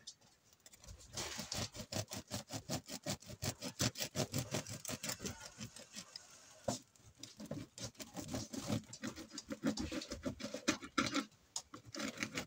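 Serrated bread knife sawing through a crusty, cheese-topped loaf on a wooden cutting board: quick back-and-forth strokes, about five a second, in two runs with a short pause between.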